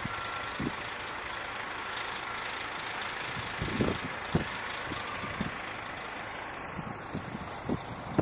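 City buses' engines running steadily in the distance under a steady hiss, with a few soft low thumps.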